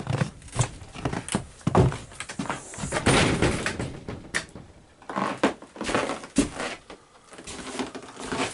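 Wooden shop door being unlatched and opened, with a series of knocks, thuds and rattles as it is handled.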